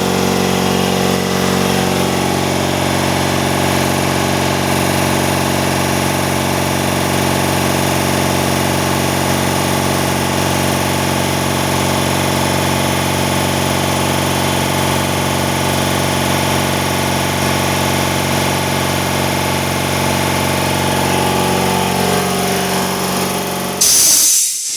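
Freshly overhauled Fiac air compressor running steadily under load, its motor and pump making an even, loud drone. Near the end it shuts off with a short burst of hissing air.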